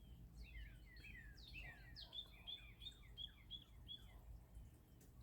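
Faint birdsong from songbirds high in the treetops: a run of quick downward-sliding notes, then about six short repeated notes in the second half, over a low steady rumble.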